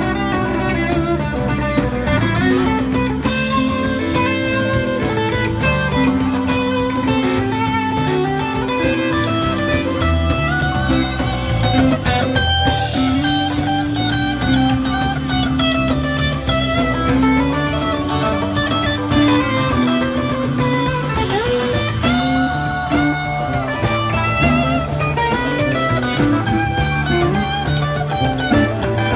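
A live rock band playing electric guitars, bass guitar and drum kit, over a steady drum beat.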